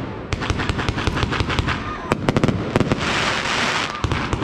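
Aerial fireworks going off in rapid succession: a dense run of sharp bangs and cracks, with a loud hiss about three seconds in that lasts nearly a second.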